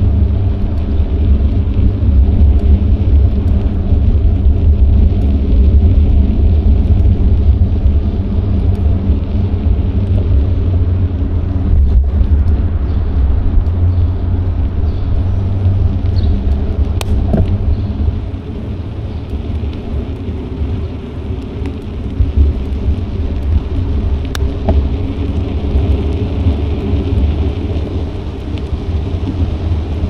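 Wind rumbling on an action camera's microphone during a bike ride, a loud low rumble over steady road noise, easing somewhat about 18 seconds in.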